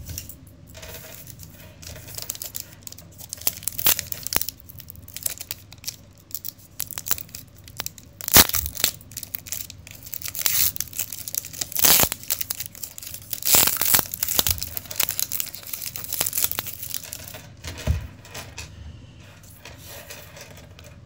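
Foil trading-card pack wrapper being torn open and crinkled, with the cards inside being handled; irregular bursts of crinkling and tearing, loudest about eight, twelve and fourteen seconds in.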